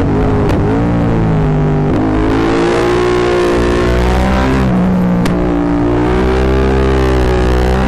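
Yamaha MT-07's 689 cc parallel-twin engine breathing through a full Akrapovic exhaust, heard on board while riding. The engine pitch rises and falls with the throttle, dipping about two seconds in and again near five seconds, then climbing again. The exhaust is loud enough to overload the microphone.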